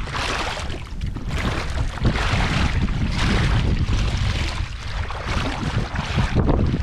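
Strong wind buffeting the microphone: a heavy low rumble with a rushing hiss that swells and fades in gusts.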